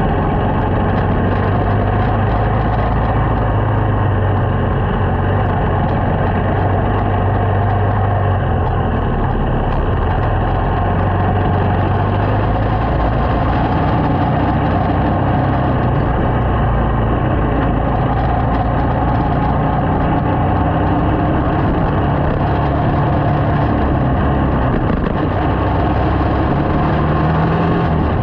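Small motorcycle engine running as it is ridden, its note shifting up and down every few seconds with speed, over steady road noise.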